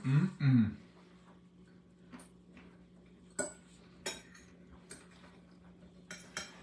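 Metal forks clicking and scraping on plates while spaghetti is eaten, in scattered light taps about a second apart. A faint steady hum runs underneath.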